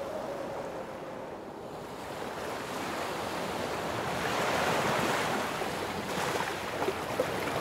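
Sea water rushing along the hull of a moving catamaran, mixed with wind on the microphone, growing a little louder around the middle.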